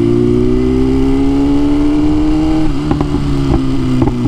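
BMW S1000RR inline-four engine heard through a helmet mic, pulling steadily with its note slowly rising. About two and a half seconds in the throttle closes and the note falls off, with a few short cracks from the exhaust as the bike slows.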